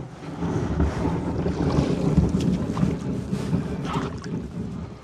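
Wind rumbling on the microphone while a canoe is paddled, with a few small splashes from the paddle. The rumble drops away right at the end.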